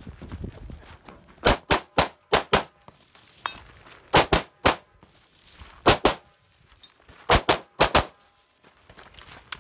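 Semi-automatic rifle shots fired in quick strings: about five, then three, two and four, with short pauses between the strings.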